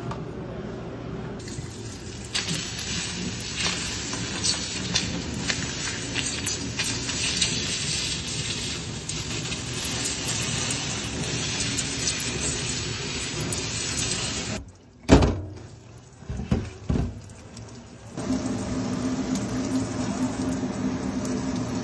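Water from a kitchen-sink pull-down faucet sprays onto a hot ingot mould, quenching the freshly cast metal bar. About fifteen seconds in the water stops, followed by a sharp knock and a couple of lighter clatters. Then the water runs again.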